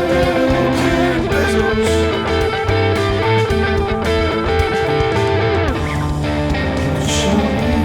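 Instrumental break of a rock song: electric guitar playing over bass guitar, with notes sliding down in pitch a little before the end.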